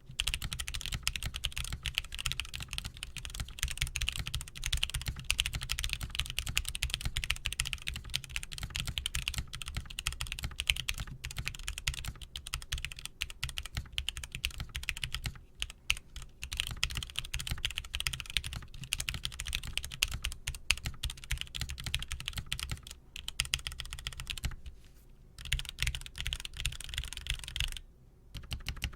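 Custom mechanical keyboard being typed on quickly and continuously, a dense run of key clacks. It breaks off briefly about halfway and twice near the end.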